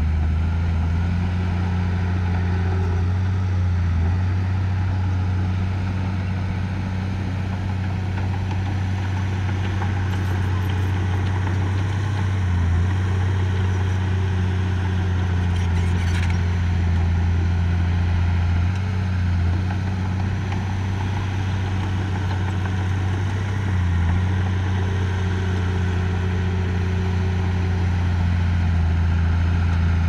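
Heavy diesel engine of earthmoving machinery running steadily with a deep, even hum. A brief click comes about 16 seconds in.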